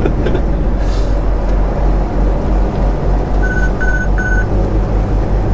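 Semi truck's diesel engine and road noise droning steadily inside the cab while driving. About three and a half seconds in, three short high electronic beeps sound in quick succession.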